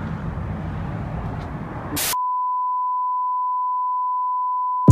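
About two seconds of low background rumble, then a click and a cut to dead silence carrying a steady electronic beep at one pitch. The beep holds for about three seconds and is laid in by editing, like a censor bleep or test tone.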